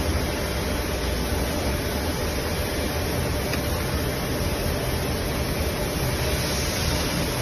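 Hydraulic punch press's pump motor running steadily at idle, a low hum with an even hiss and no strokes.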